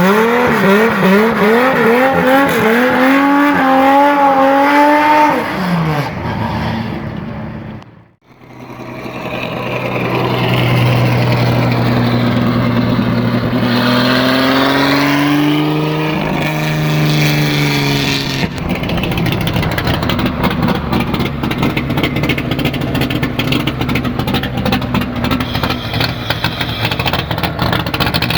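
Naturally aspirated car engine revving hard during a burnout, with tyre noise. The pitch climbs in wavering steps, drops away briefly about eight seconds in, then holds high revs, rises again and turns rougher and noisier with the spinning tyres.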